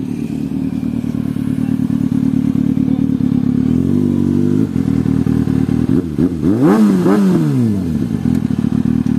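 Motorcycle engine running at a steady idle, then revved up and down a few times in the second half; the sound cuts off suddenly at the end.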